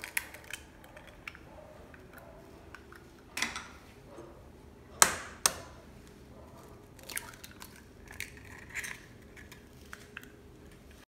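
Eggs being cracked open by hand over a glass bowl: a few sharp shell cracks and taps with quieter shell-handling in between, the loudest crack about five seconds in and another close after it.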